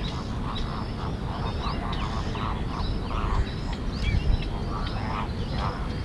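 Wetland birds calling: short, harsh calls repeated a few times a second, with high, thin chirps of small birds over them and a low steady rumble underneath.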